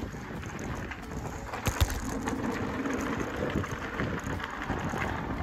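Bicycle tyres rolling fast over a damp dirt-and-gravel road, a steady crunching and rattling with wind on the microphone. A single sharp knock just under two seconds in.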